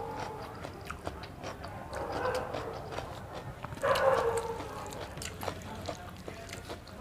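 A dog gives short whimpering yips twice, about two seconds in and again about four seconds in, over the soft clicking of chewing.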